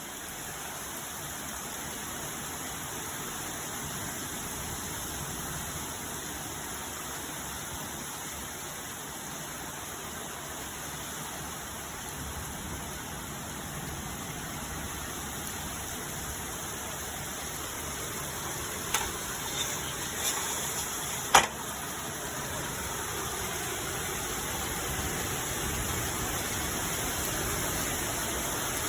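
Steady rush of rain from a summer storm, growing slowly louder, with a few sharp taps close together about two-thirds of the way in, the last of them the loudest.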